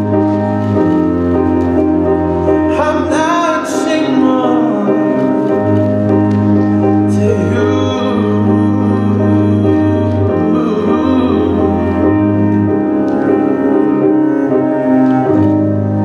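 Recorded slow song with sustained keyboard chords over a low bass line, playing for a dance routine. A singer's voice comes in about three seconds in and again around seven seconds in.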